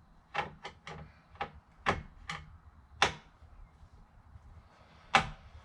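Irregular sharp clicks and knocks, about eight of them, the loudest near the end. They come from a screwdriver and hands working at the plastic steering column cover's screws.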